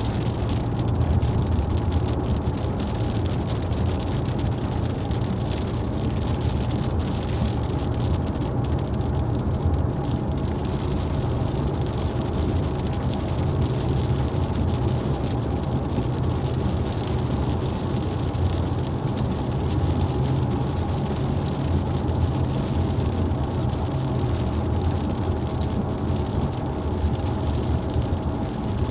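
A car driving steadily along the road, with a constant low rumble of engine and tyre noise.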